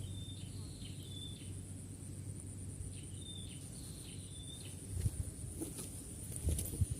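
A steady high-pitched insect drone under a small bird's short, high chirps, five of them in the first four seconds. A few knocks and rustles come in near the end.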